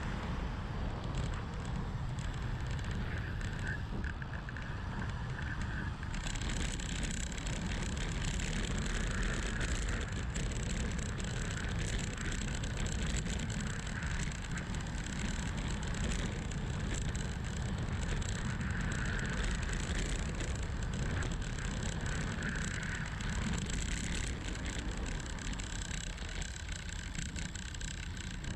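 Wind rushing over the microphone of a camera on a road bike during a fast descent, with tyre hiss on the asphalt. The hiss turns brighter about six seconds in.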